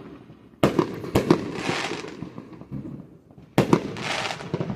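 Fireworks going off in two bursts of sharp bangs, about half a second in and again after about three and a half seconds. Each burst is followed by a hiss of crackling.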